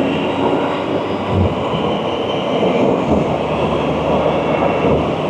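Steady rush of wind and air whistling over a rider's helmet microphone, mixed with the engine and road noise of a Can-Am Spyder three-wheeled motorcycle at cruising speed.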